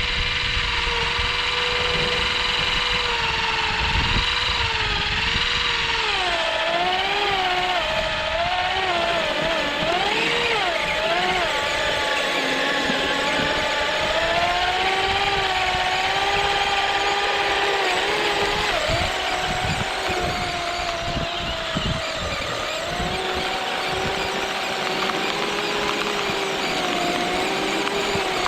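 Electric motors of a radio-controlled Kyosho Blizzard SR snowcat and its 3D-printed snow-blower attachment whining, the pitch rising and falling over and over, with scattered low knocks.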